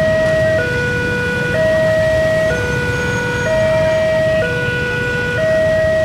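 Electronic railway level-crossing warning alarm sounding a steady two-tone hi-lo signal, each tone about a second long, alternating without a break over a low rumble; the crossing is warning of an approaching train.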